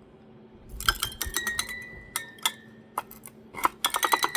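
Tiny music-box mechanism inside a Japanese puzzle box, set off by pulling out the box's little drawer. Its metal comb teeth are plucked in a quick run of tinkling, ringing notes that start about a second in.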